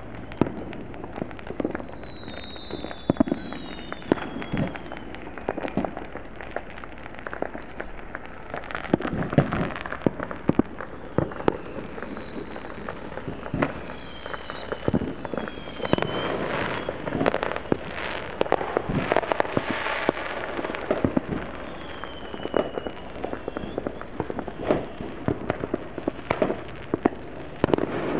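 Distant fireworks going off all through, in an irregular string of bangs, pops and crackles. Several high whistles fall in pitch along the way.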